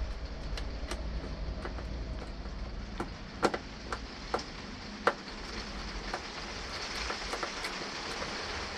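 Rain on a caravan roof, a steady hiss throughout, with scattered sharp clicks and taps from hand work on 12-volt wiring terminals; the loudest clicks come about three and a half and five seconds in.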